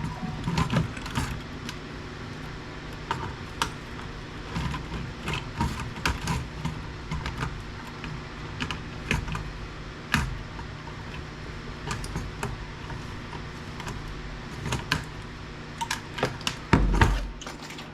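Irregular sharp clicks and snaps of wire cutters trimming wires off electronics, with small parts being handled, over a steady low hum.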